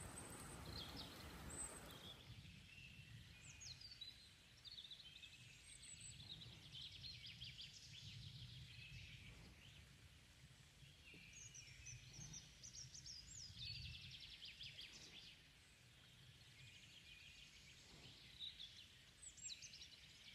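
Faint outdoor ambience of several small songbirds singing, with many short chirps, trills and quick pitch glides overlapping throughout, over a low rumble. A soft hiss underneath stops about two seconds in.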